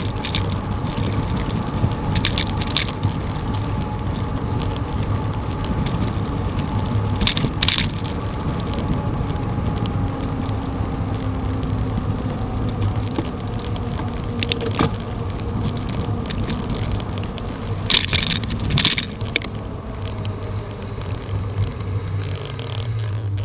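Bicycle riding noise picked up by a bike-mounted camera: a steady rumble of tyres on asphalt mixed with wind, broken by a few short rattles, with a cluster of them near the end.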